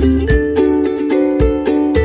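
Instrumental background music with a steady beat and quick, ringing pitched notes.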